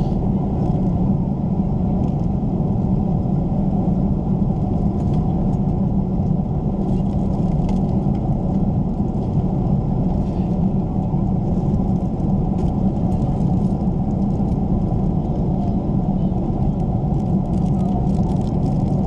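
Airbus A330-300 cabin noise in cruise: a loud, steady low rumble of engines and airflow. Faint light clicks and rustles of plastic wrap and cutlery sit on top.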